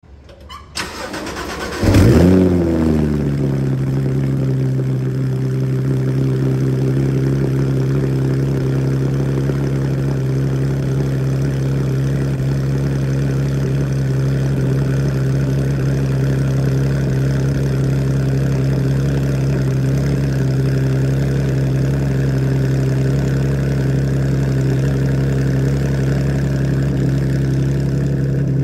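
2014 Porsche 991.1 GT3's 3.8-litre flat-six cold-starting through Dundon street headers, side-muffler deletes and an Akrapovič titanium centre section. After a brief crank it catches with a loud flare about two seconds in, the pitch dropping quickly, then it settles into a steady cold-start fast idle.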